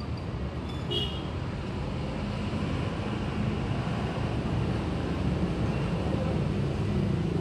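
Steady outdoor rumble of distant road traffic, with a short high-pitched chirp about a second in.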